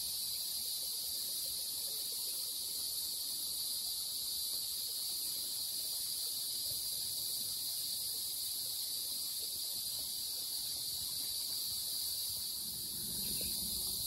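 A steady, high-pitched chorus of insects.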